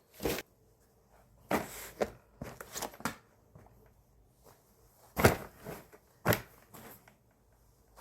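Clothes being handled and packed into a suitcase: short rustles and soft knocks in bursts, the two loudest about five and six seconds in.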